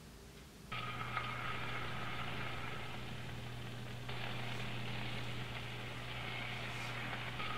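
Steady kitchen stovetop noise, a hiss over a low hum, under a stainless steel frying pan on low heat. It cuts in abruptly about a second in and steps up a little about four seconds in.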